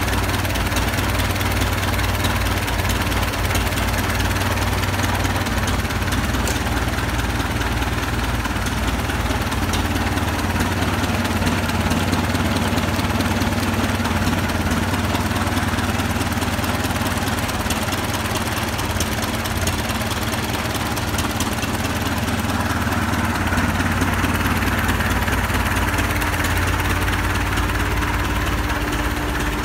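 Engine of an original, unrestored 1927 Clydesdale truck idling steadily, running for the first time after being got going that day. A steady higher hum joins in near the end.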